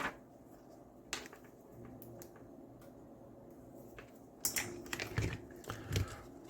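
Faint scattered clicks and handling noise from a multimeter being set up to measure resistance: a few single clicks over the first four seconds, then a denser run of clicks and rustling in the last two seconds.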